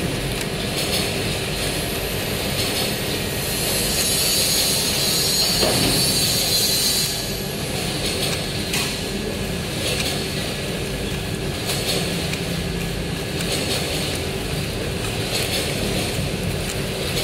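Steady running of liquid packing-line machinery, with a steady hum and a hiss of air from about two to seven seconds in. A few light knocks come as filled plastic pouches are set on a scale.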